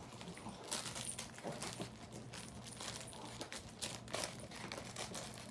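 A Pomeranian rummaging with its nose through the fleece strips of a snuffle mat: soft rustling and scattered small irregular clicks.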